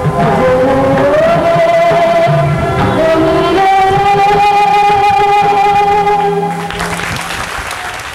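Music with a singer holding long, steady notes over a low accompaniment. Near the end a rustling noise comes in and the music fades out.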